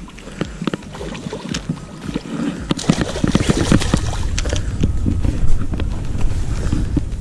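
Low rumbling wind and handling noise on a body-worn camera, stronger from about three seconds in, with scattered rustles and knocks as an angler swings a pike out of the water onto the grassy bank.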